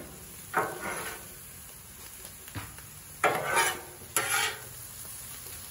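Metal spatula scraping and chopping across a Blackstone griddle's steel cooktop as seasoned beef is mixed, three louder scrapes over a steady sizzle of the meat and vegetables frying.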